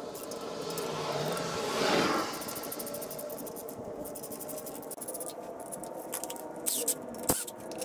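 Hand ratchet clicking and scraping as the stator cover bolts are snugged down by hand, with a swell of louder noise about two seconds in and a sharp metallic click near the end.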